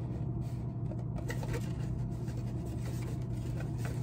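Faint rustling and scratching of stiff black construction paper being handled and pressed together, a few scattered soft scrapes over a steady low hum.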